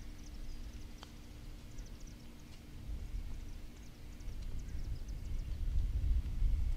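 Faint click of a putter striking a golf ball about a second in, then the ball rolling out unheard against open-air ambience: small birds chirping, wind rumble on the microphone and a steady low hum.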